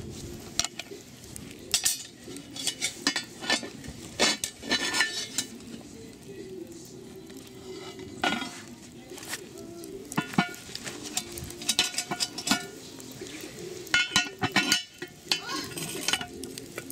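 Irregular metal clinks and knocks around a cast-iron Dutch oven, coming in clusters over a steady low background, as a lid lifter works the coal-covered lid.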